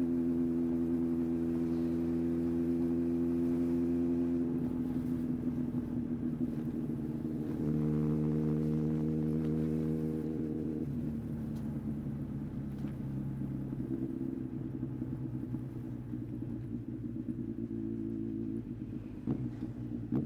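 Yamaha XJR1300's air-cooled inline-four engine and exhaust running at a steady engine speed that changes in steps several times, a little quieter in the second half, with a brief tick near the end.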